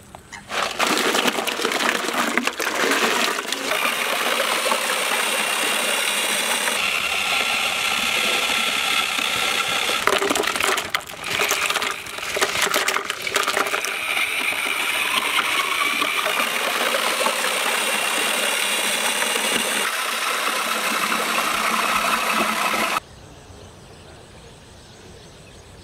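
Ice cubes tipped from a steel plate into a large metal pot of milk, clattering and splashing, with a few sharper knocks about halfway through. Near the end it stops and gives way to a faint background.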